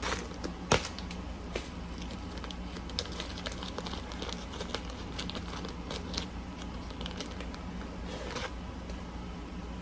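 Scattered small clicks and brief crinkling as a pocket knife is handled and a package is cut open, with one sharp click just under a second in.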